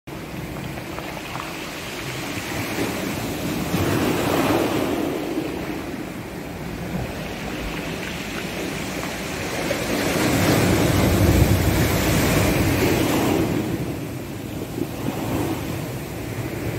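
Sea waves surging and breaking, with wind, rising and falling in slow swells, loudest around ten to thirteen seconds in.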